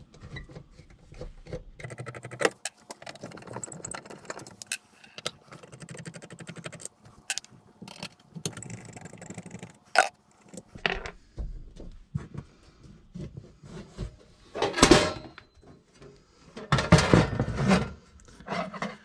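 A steel breaker-panel cover being taken off by hand. A run of small clicks and metal rattles comes as the cover screws are backed out with a screwdriver. Near the end there are two louder scraping clatters as the cover is lifted off and laid down.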